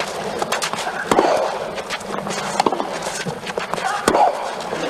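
Tennis rally: rackets striking the ball back and forth in sharp hits, with short vocal grunts from the players on some shots.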